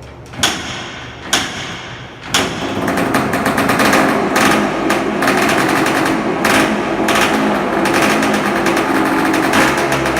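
Yamaha IT250H's single-cylinder two-stroke engine popping twice, then catching a little over two seconds in and running with a rapid crackling beat, revved in blips. It is running after a top-end rebuild.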